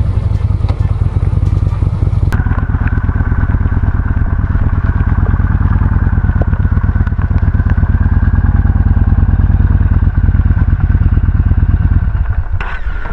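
Yamaha Bolt's 941 cc air-cooled V-twin engine running at low speed with a rapid, even beat, as the motorcycle rolls up across a wet gravel lot and comes to a stop. The engine sound drops away near the end.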